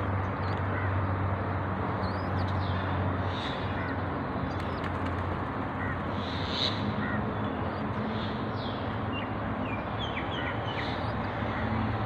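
Short, high bird calls scattered through a steady outdoor hiss and low hum, with a quick run of falling chirps about three quarters of the way through.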